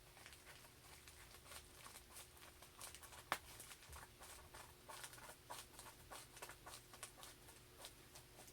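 Faint rustling and small clicks of a mailed package being handled and opened, with one sharper click about three seconds in.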